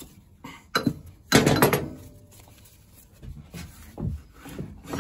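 Metallic knocks and clinks as the rear wheel spindle of a BMW G310GS is drawn out of the swingarm and the wheel is held by hand. The loudest is a clattering knock with a brief ring about a second and a half in, followed by a few fainter knocks.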